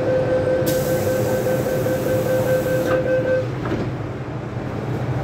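MTR M-Train door-closing warning tone sounding for about three and a half seconds, with a hiss over most of it, as the train doors slide shut with a knock near the end of the tone. The train's steady low rumble runs underneath.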